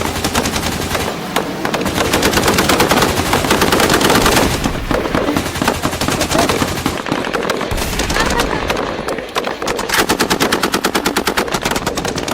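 Nerf blasters firing in rapid automatic bursts, a fast rattle of shots that eases briefly partway through and then picks up again.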